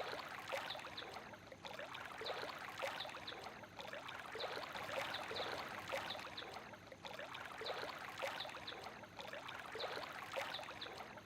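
Water trickling and gurgling: a steady wash of many small, irregular bubbling drips.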